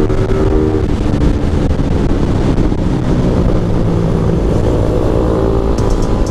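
Suzuki Raider 150 Fi's single-cylinder engine running steadily at riding speed, with wind rushing over the camera's microphone.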